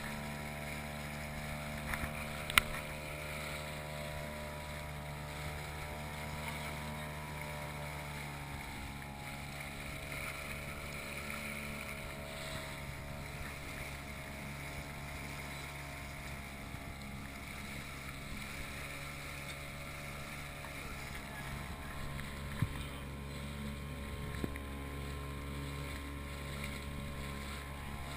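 Motorboat's outboard motor running steadily under way, its pitch dropping slightly about eight seconds in, with water and wind noise. A sharp knock about two and a half seconds in and a couple of lighter knocks near the end.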